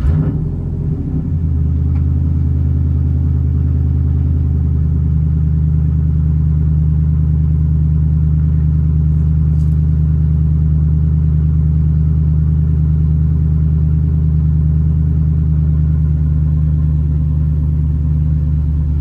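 Truck engine starting up, its note shifting briefly before it settles within about a second into a steady idle.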